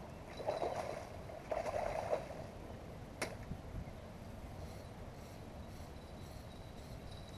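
Water splashing in two short bursts as a landing net is worked through the shallows, then one sharp click about three seconds in. A faint steady high tone sets in about halfway.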